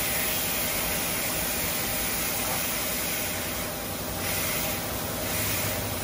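Kinki air paint spray gun hissing steadily as compressed air blows a fine, fanned-out mist, easing briefly a couple of times.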